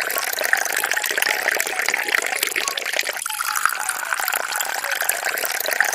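Water pouring in a steady stream from a plastic bottle into an aluminium rice-cooker pot, splashing on the metal as it fills. There is a brief break about halfway, after which the splashing rises slightly in pitch.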